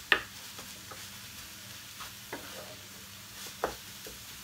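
Wooden spatula stirring desiccated coconut cooked in ghee and milk in a non-stick frying pan, with a few sharp scrapes and knocks against the pan, the loudest just after it begins. A low sizzle of the mixture cooking over a low flame runs underneath.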